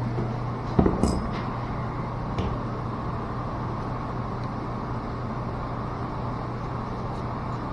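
Steady low machinery hum with a constant background rush, broken about a second in by two sharp knocks and a fainter one a little later, as valve parts or tools are handled.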